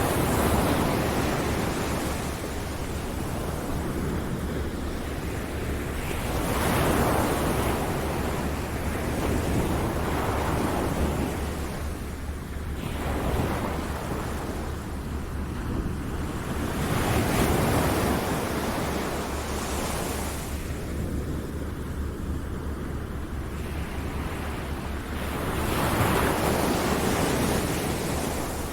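Ocean surf: waves breaking and washing in as a continuous rush, swelling louder every eight to ten seconds and easing off between surges.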